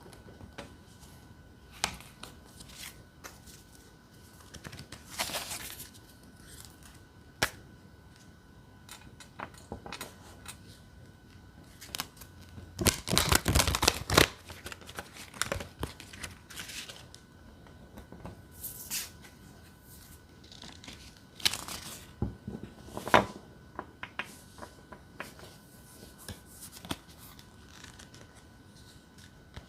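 Enchanted Tarot cards shuffled by hand: scattered soft flicks and taps of card edges, with a longer run of fast card flicking about halfway through and shorter runs later on.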